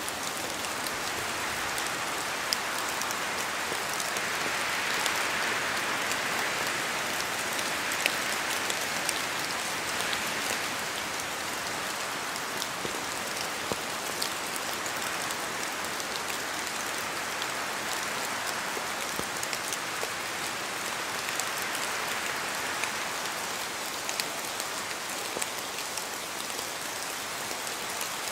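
Steady rain in a spruce forest, with scattered sharper drops falling from the trees and wind swelling through the branches a few times.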